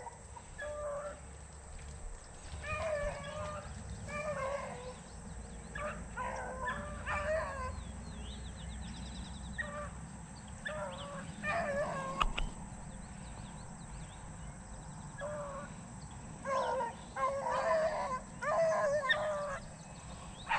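Beagles baying as they run a rabbit's track. The bays come in bouts, with a pause of a few seconds just past the middle.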